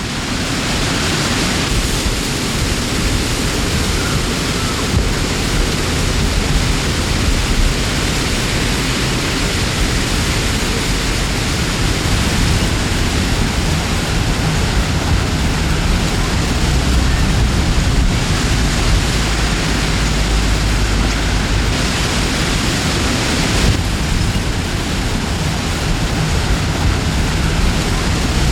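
Wind blowing through a forest: a steady rushing noise with a heavy low rumble that swells at times.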